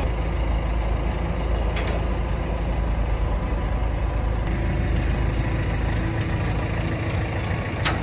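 A heavy engine running steadily at idle, with a few light clicks and knocks over it.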